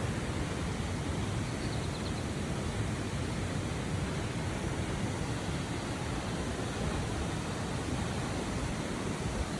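Steady rush of water falling at a waterfall, an even noise with no breaks.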